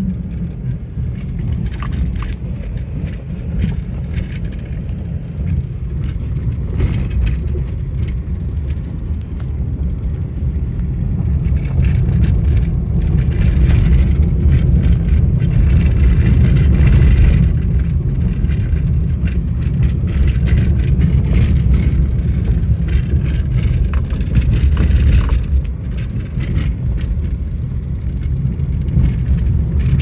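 Steady low rumble of wind and road noise from a moving vehicle, growing louder for a few seconds in the middle.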